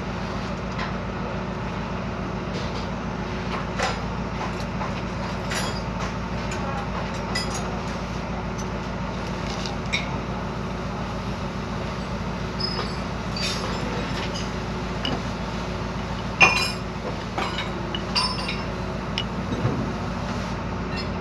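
Scattered light metallic clinks and knocks as a truck propeller shaft's yoke and a new universal joint (cross joint) are handled and fitted together, over steady background noise. The sharpest knock comes about sixteen seconds in.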